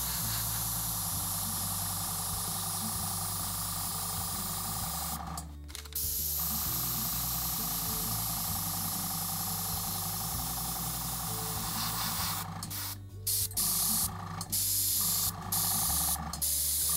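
Airbrush spraying paint in long, steady hisses, cut off briefly about five and a half seconds in and then in several short stops near the end as the trigger is let go.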